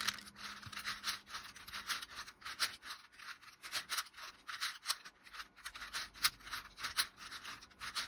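Plastic 4x4 Rubik's cube being turned quickly by hand through a run of moves: rapid, irregular clicking and scraping of its layers sliding against each other.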